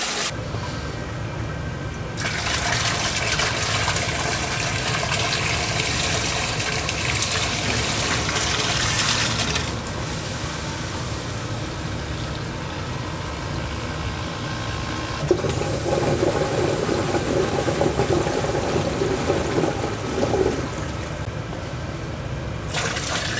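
Water poured from a bucket into a sump pit, a continuous gushing splash that shifts in character about ten seconds in and again about fifteen seconds in; the pit is being filled to trip the new sump pump's float switch.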